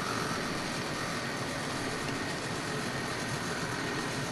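HO scale model train running on track: a steady mechanical running noise with a faint high motor whine.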